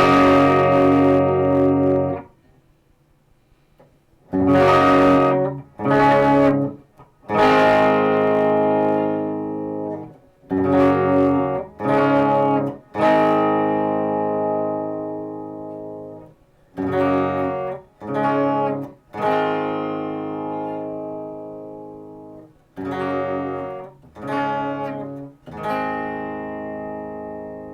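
Electric guitar through Alnico 5 humbucker pickups, strumming chords. Some chords are stopped short and others are left to ring and slowly fade, with a brief pause early on.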